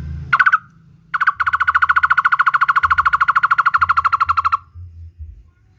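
A barbet singing: one short note, then a fast, even run of repeated hollow notes, about a dozen a second, that lasts about three and a half seconds and stops abruptly. A low hum sits underneath.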